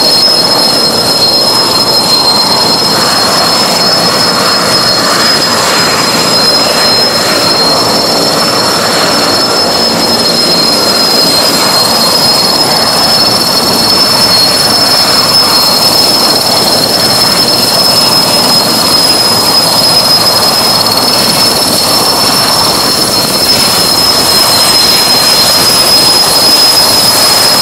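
Erickson S-64 Air-Crane helicopter running on the ground: its twin turboshaft engines give a loud, steady, high-pitched whine over a constant rushing roar.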